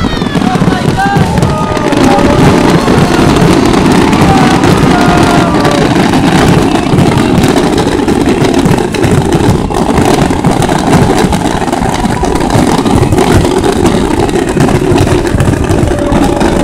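Fireworks barrage: a dense, continuous rapid-fire crackle of aerial bursts and bangs, with short high whistles over the first few seconds.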